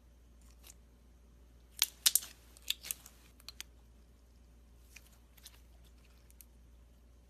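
Slime being handled, with sharp popping and crackling clicks: a cluster about two to three and a half seconds in, then a few faint ticks later.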